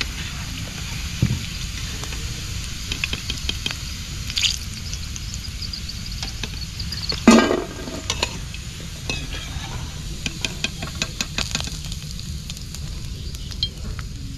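Rice-paste snacks deep-frying in hot oil in a frying pan, a steady sizzle, while a perforated steel skimmer clicks and scrapes against the pan and a steel plate as the fried pieces are lifted out. One louder knock about seven seconds in.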